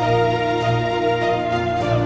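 Background music: sustained chords with a long held melody note over a steady beat.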